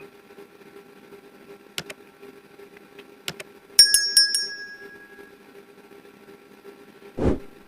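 A small metal object clinking on a hard surface: a quick cluster of about four bright strikes with a short ringing tail, about four seconds in, between scattered light handling clicks. A dull thump near the end, over a low steady hum.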